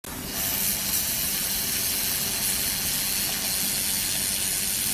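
Handheld laser welding gun at work on a sheet-metal joint: a steady hiss of the shielding gas flowing from the nozzle, starting a moment in, with a faint low hum underneath.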